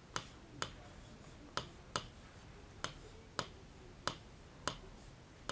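Pen stylus tapping on an interactive smart-board screen during handwriting: about nine sharp, light clicks at uneven intervals.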